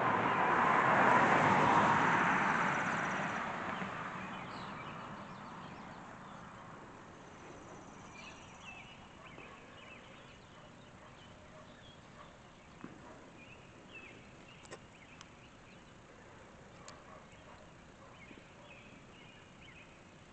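A vehicle passes, its noise swelling in the first couple of seconds and fading away over the next few. Then small birds chirp faintly and sporadically, with a few faint clicks.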